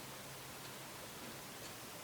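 Bauknecht WA 7778 W washing machine standing still in a pause of its wash cycle: only a faint steady low hum and hiss, with a couple of very faint ticks.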